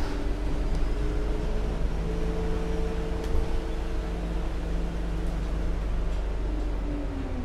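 Heuliez GX 317 GNV natural-gas city bus idling at a standstill: a steady low engine rumble with humming tones. Near the end one tone dips and rises again.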